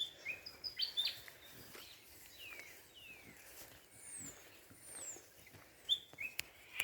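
Birds calling: a scatter of short, clear whistled notes, most sliding down in pitch, some high and thin, with a few faint clicks among them.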